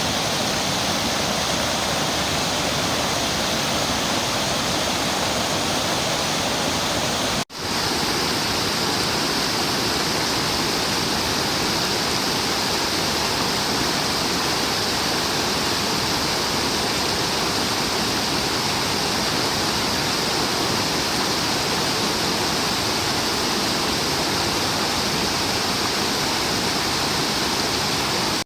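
Waterfall rushing in a steady, unbroken roar of falling water. About seven seconds in the sound drops out for an instant at an edit, then resumes with a slightly brighter hiss.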